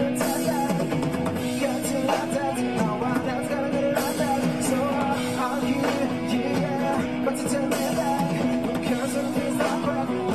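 Live rock band playing a rhythmic song: drums, electric bass and a male voice singing into a microphone.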